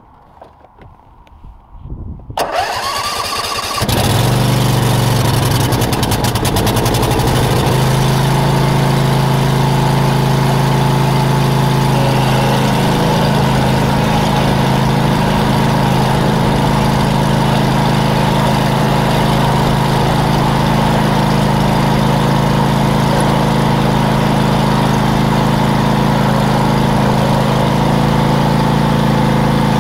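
Lawn mower engine starting up about two seconds in, its pitch wavering briefly as it catches, then running steadily and loudly.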